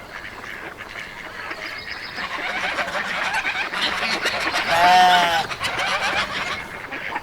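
Farmyard animals calling: a dense chatter of poultry that grows louder, then one loud, drawn-out honking call about five seconds in.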